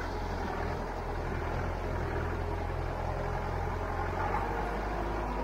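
Mahindra 4x4 jeep's engine running with a steady low rumble.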